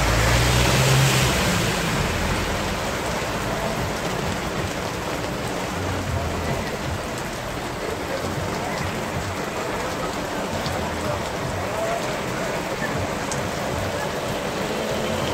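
Heavy rain pelting onto a flooded street, a steady dense hiss of drops hitting standing water. A car drives past through the water in the first second or so, adding a low rumble.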